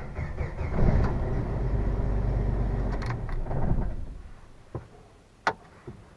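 1994 Jeep Wrangler YJ's starter cranking the engine slowly for about three seconds before dying away, followed by two sharp clicks. The slow crank comes with a fully charged battery and new battery cables, and the owner puts it down to a worn-out starter.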